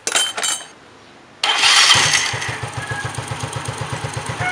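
A Yamaha Mio Sporty scooter's single-cylinder four-stroke engine starts up with the CVT cover off, its belt and pulleys exposed. It catches about a second and a half in and settles into a steady idle. A few brief clicks come just before it starts.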